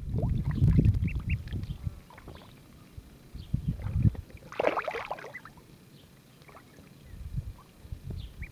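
Ducklings splashing and paddling in a shallow pond, with short high peeps now and then and a louder splash about halfway through.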